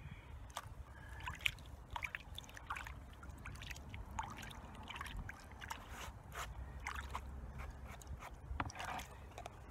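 Water sloshing and dribbling as a gold pan is dipped and swirled in a tub of water and gold concentrates are washed by hand, with many small, irregular splashes.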